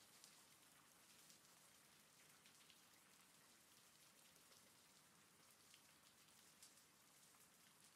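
Faint, steady rain with scattered drop ticks.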